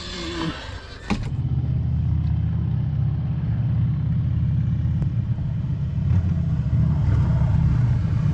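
A thump about a second in, then the steady low rumble of a car running, heard from inside the car.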